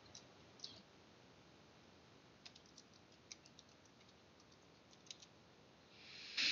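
Faint, scattered taps on computer keyboard keys as a word is typed. A soft breathy noise comes near the end.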